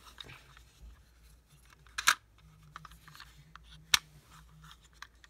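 A red plastic Beyblade Burst launcher being handled and turned over, with two sharp plastic clicks, about two seconds in and about four seconds in.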